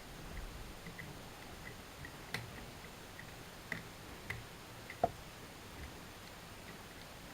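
Faint ticking of an Era Fortress lever deadbolt being picked with a curtain pick, as the levers are lifted one at a time. A few sharper clicks stand out about two, four and five seconds in.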